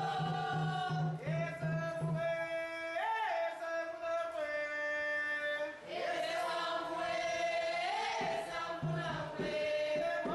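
Voices singing a call-like ritual chant together, a Candomblé cantiga for the Iabás, the female orixás, in long held notes that slide up and fall away. A low, evenly pulsing beat runs under the first two seconds and comes back near the end.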